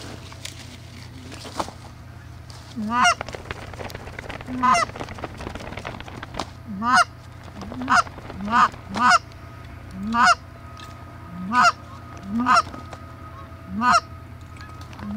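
Canada goose honks: about eleven loud two-note honks, each breaking from a low note up to a high one, starting about three seconds in and coming faster toward the end.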